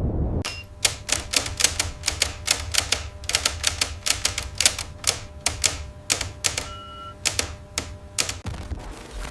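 Rapid, irregular, sharp clicks, several a second, like typewriter keystrokes, over a low steady rumble.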